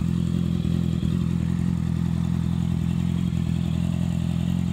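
2014 Honda CBR650F's inline-four engine idling steadily through a CS Escapamentos aftermarket full exhaust system, headers included. The note stays even with no revving, and the recording loses much of its bass.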